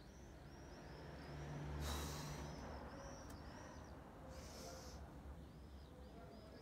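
A person breathing forcefully in time with yoga movements, with two loud breaths about two and a half seconds apart. Small birds chirp steadily in the background.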